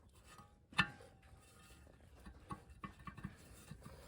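Metal hardware clinking: one sharp clink about a second in that rings briefly, then a few light taps.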